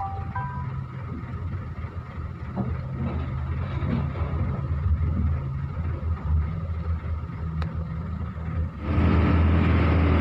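An engine running with a steady low drone; about nine seconds in it turns suddenly louder and rougher.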